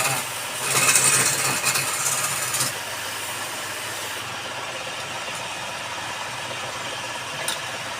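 Wood lathe motor running steadily. For the first few seconds a loud hissing scrape of a tool cutting the spinning workpiece rides over it, then only the even hum remains. There is one short click near the end.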